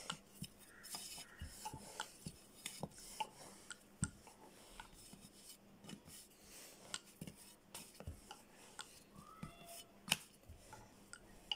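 Faint, irregular clicks and taps of pizza dough being rolled out and pressed by hand on a floured steel plate.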